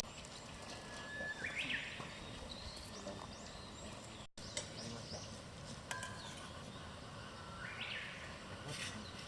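A songbird calling twice, each call a short held whistle followed by a quick rising flourish, over faint outdoor background noise.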